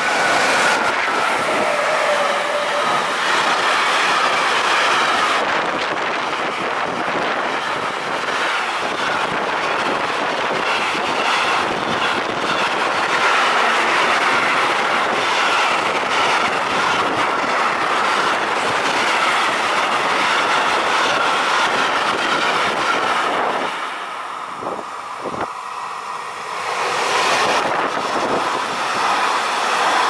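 Intermodal freight train rolling past close by behind an electric locomotive: steady loud rolling noise of the wagons' wheels on the rails with wheel clatter and a continuous high ring from the wheels. About 24 seconds in it drops briefly, then a passenger electric multiple unit passes with the same kind of rolling noise.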